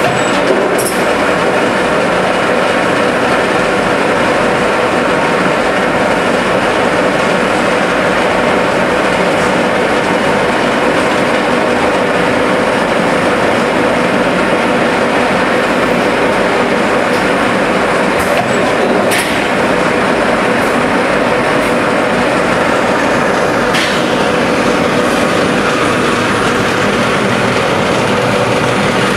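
Chocolate moulding line machinery running steadily, moulds carried along a conveyor, with a constant hum and a few sharp clicks, one near the start and two in the second half.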